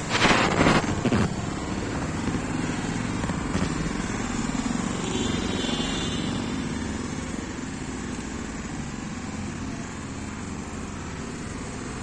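Steady hum of road traffic, engines running without let-up, with a louder rush of noise in the first second or so.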